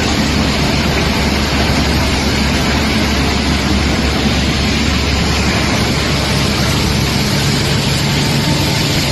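DYP-90 wet shotcrete machine working: a steady, loud hiss over a low mechanical drone. A slightly higher hum joins about six seconds in.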